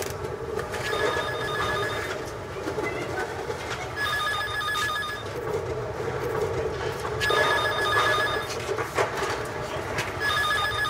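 Public payphone in a street phone booth ringing: four trilling electronic rings about three seconds apart, over steady city background noise.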